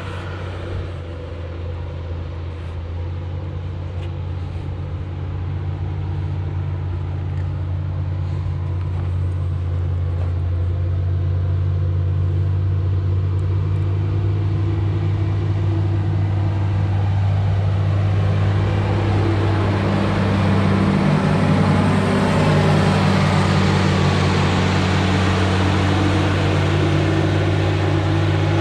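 Diesel engine of a heavy snow-clearing machine (loader or backhoe) running steadily while pushing deep snow, with a deep, even hum that grows slowly louder over the first twenty seconds, then holds.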